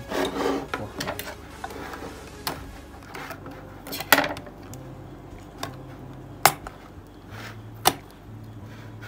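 A ring-pull tin can being worked open on a tabletop by hand. There is some rubbing and handling noise, then a few sharp metallic clicks, the two loudest in the second half.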